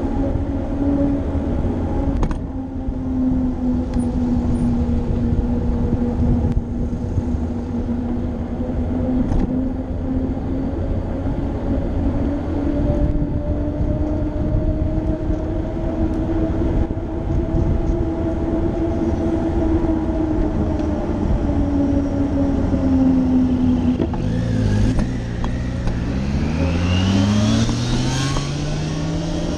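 Road and wind noise from riding a bicycle in city traffic, with a steady hum throughout. Starting about 24 s in, a motorcycle accelerates close by, its engine rising steadily in pitch.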